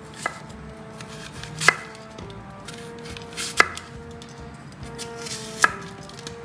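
Four sharp knocks about two seconds apart, the first one weaker, over soft background music with held notes.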